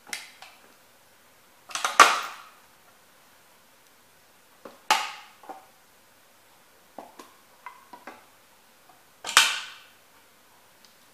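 Rubber work boots stomping down on small model train houses, with sharp cracking crunches as the houses give way. The loudest stomps come about two seconds in and again near the end, with smaller clicks and snaps in between.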